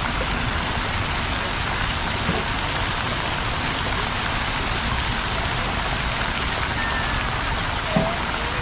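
Steady, dense splashing rush of water from a plaza water feature, like heavy rain on water. A brief short sliding call sounds near the end.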